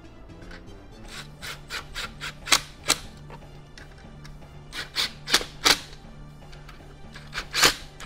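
Cordless drill driving Tapcon concrete screws through a plastic mounting plate into concrete, in short bursts of a second or two with brief pauses between them. The last burst near the end is slightly longer.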